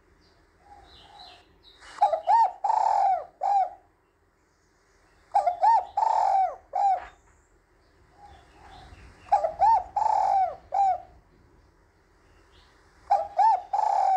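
Spotted dove cooing: four phrases of several coo notes, a few seconds apart. It is the female's call, used to stir up males.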